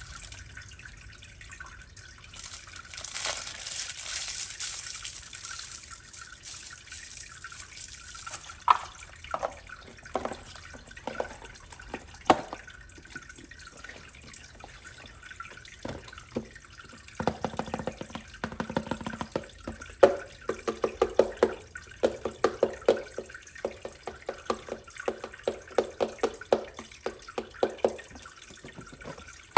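Water: a few seconds of hissing flow, then separate drips and plinks that quicken into a rapid patter in the second half.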